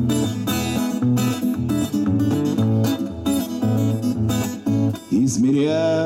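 Six-string acoustic guitar strummed in a steady rhythm with a repeating bass-note pattern, an instrumental break in a song. A man's singing voice comes in over the guitar about five seconds in.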